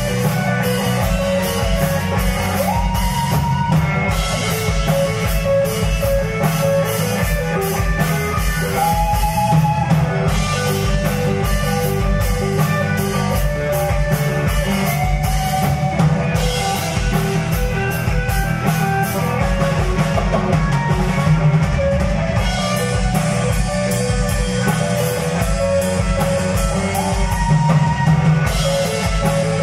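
Live rock band playing: an electric guitar lead with held, sliding notes over drum kit, bass guitar and keyboard, at a steady loud level.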